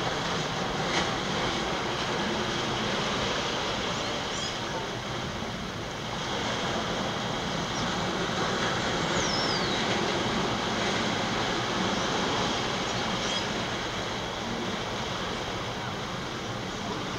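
Steady rushing outdoor ambience as heard by a compact camera's microphone over open sea, with a few faint short high chirps and one falling chirp about nine seconds in.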